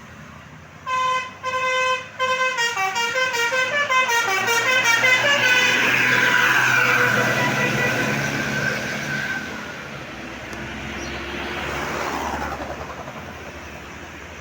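Tour bus's 'telolet' basuri musical horn: two long blasts, then a quick tune of stepping notes, followed by the bus passing, its sound falling in pitch as it goes by.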